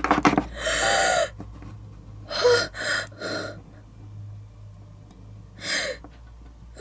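A person's frightened gasps and short breaths: a long gasp near the start, three quick breaths a couple of seconds in, and another near the end, over a low steady hum.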